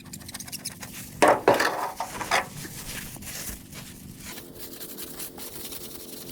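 Scraping and clattering of hard objects, with several loud, harsh scrapes between about one and two and a half seconds in.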